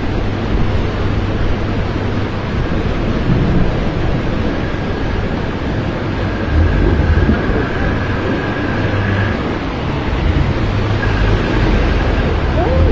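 Muddy floodwater and mudflow rushing down a street and spilling over a storm-drain channel: a steady, loud rushing with a low rumble.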